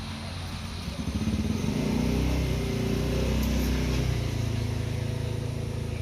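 A small engine running, growing louder about a second in and easing off toward the end.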